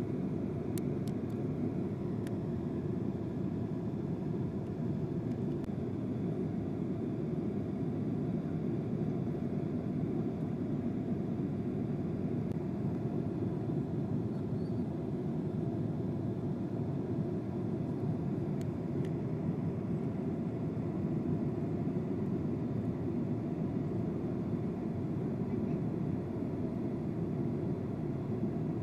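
Steady low rushing drone of a passenger jet's cabin, engine and airflow noise, holding level throughout, with a couple of faint clicks about a second in and again past the middle.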